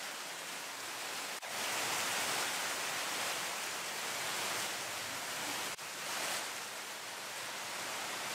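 Steady, even hiss of background noise with no distinct sounds in it, briefly dropping out twice where the shots change.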